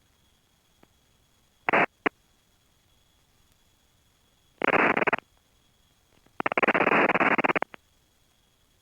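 Helicopter headset audio: a faint steady hiss with a thin high tone, broken by abrupt bursts of rushing noise that switch on and off. Two short bursts come near two seconds in, one of about half a second midway, and one of over a second near the end.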